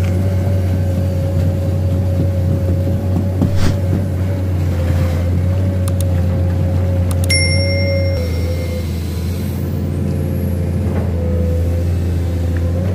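Excavator's diesel engine running steadily under load, with a low drone and a steady whine, as the bucket drags a loaded sled through deep mud. A brief high squeal sounds a little past halfway through.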